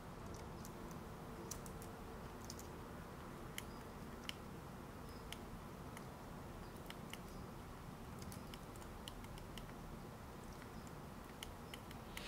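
Faint, irregular clicks of a computer keyboard and mouse being worked, scattered over steady low background noise.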